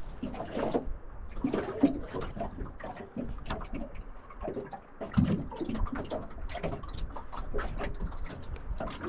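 Water splashing and slapping against the hull of a small aluminium boat under way on choppy water, in quick irregular bursts.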